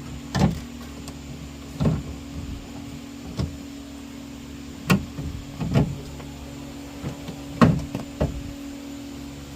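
Irregular knocks and clunks, about seven of them, as a 6x9 car speaker is handled and pressed into a door's speaker opening for a test fit, over a steady low hum.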